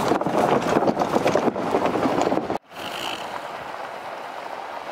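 A vehicle driving over a bridge: loud tyre and road rumble with wind buffeting the outside-mounted microphone. It cuts off sharply about two and a half seconds in, giving way to a quieter, steady vehicle hum.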